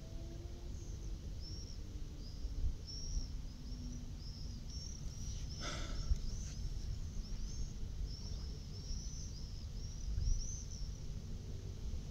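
A small bird singing a long run of short, high, arched chirps, several a second, over a steady low rumble of outdoor background noise. A single sharp click comes about halfway through.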